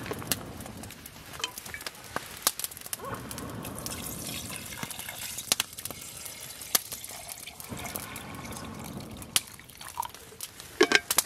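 Water poured from a stainless steel bottle into a metal camp mug, in two pours, with a few sharp clicks scattered through and a cluster of louder clicks near the end.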